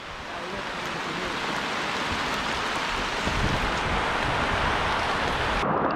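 Heavy rain falling steadily, an even hiss with scattered drop ticks. Near the end the hiss dulls abruptly.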